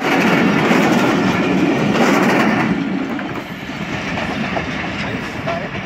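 Train running past on the rails, loud for about the first three seconds, then fading away.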